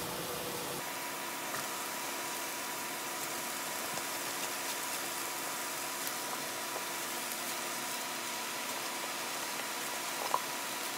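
Sliced red onions sizzling steadily in a hot nonstick frying pan, an even hiss with a faint steady hum under it, and one light click near the end.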